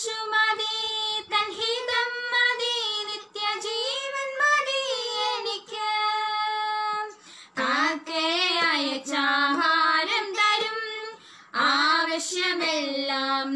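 Two young women singing a Malayalam Christian worship song together, unaccompanied, in long sung phrases with short breath pauses between them.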